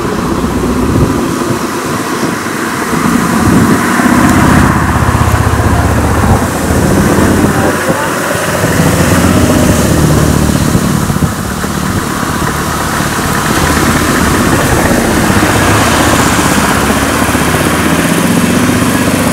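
Road traffic: a motor vehicle engine running steadily close by, with cars, a motorcycle and a small lorry driving past.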